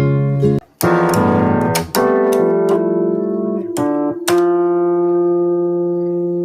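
Instrumental music: plucked notes on a guitar, with a brief break under a second in, then a run of notes and a chord left ringing near the end.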